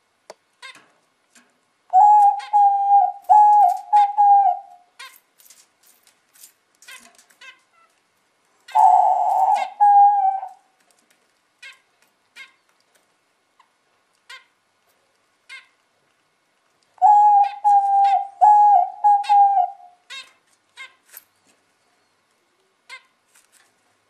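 Diamond dove cooing: three bouts of soft, repeated coos, each lasting a few seconds, with faint sharp ticks in the gaps between them.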